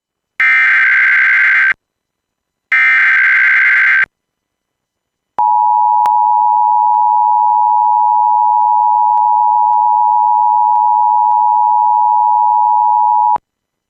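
Emergency Alert System broadcast: two harsh, screeching bursts of digital SAME header data, then a steady, loud two-tone EAS attention signal lasting about eight seconds that cuts off sharply. Together they announce an emergency alert, here a child abduction (AMBER) alert.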